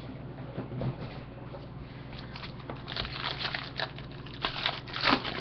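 Foil wrapper of a Panini Playbook football card pack crinkling and tearing as it is opened by hand, in a quick run of sharp crackles starting about three seconds in and loudest near the end.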